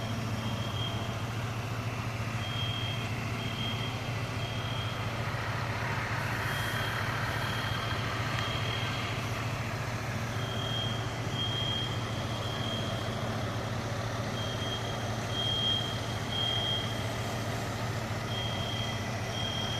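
Apartment smoke alarms beeping in groups of three about every four seconds: the high-pitched temporal-three pattern that signals a fire. Under the alarms runs the steady low hum of an idling fire truck engine.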